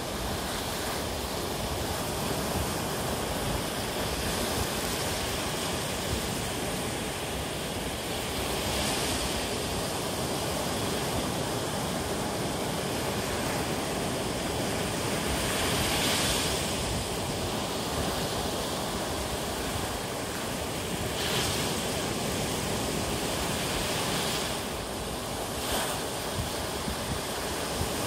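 Ocean surf: waves breaking and washing up a sandy beach in a continuous rush, swelling louder every several seconds as a wave breaks.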